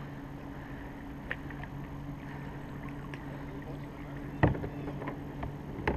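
Small knocks and clicks of gear against a plastic kayak hull, with one sharper knock about four and a half seconds in and another near the end, over a steady low hum.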